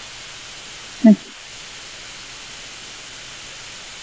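Steady hiss from an open microphone on a video call, with one brief vocal sound about a second in that falls in pitch.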